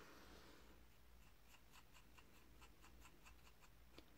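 Faint quick ticking, about five taps a second for a couple of seconds, of a paintbrush working paint in a plastic watercolour palette, then one small click near the end, over a low electrical hum.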